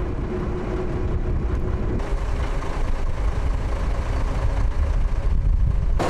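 Small fishing boat's engine running, a steady low rumble.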